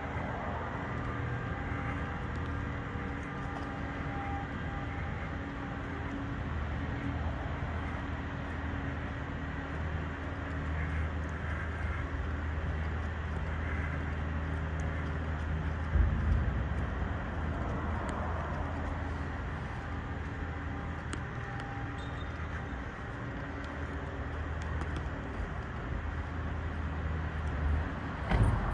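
Steady low rumble of road traffic echoing through a concrete storm-drain tunnel, with a short thump about halfway through and another near the end.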